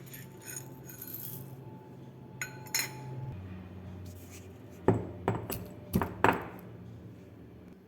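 Pestle pounding whole black peppercorns, fresh ginger, cloves and cinnamon in a mortar to a rough crush. It gives a few scattered knocks, then a quick run of about five hard strikes a little over halfway through.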